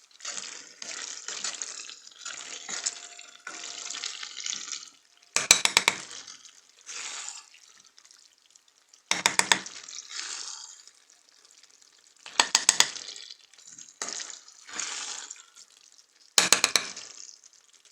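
Spoon stirring pasta and sauce in a pot, with soft stirring noise broken four times by a quick run of clinks of the spoon against the pot.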